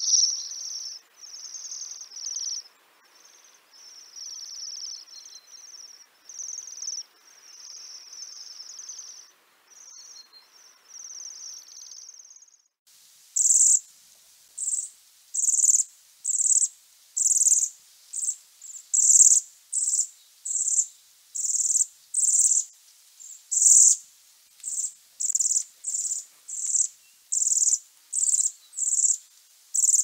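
Bohemian waxwings giving their high, ringing trilled calls: a flock's overlapping trills at first, then about 13 seconds in, louder trills repeated evenly, about three every two seconds.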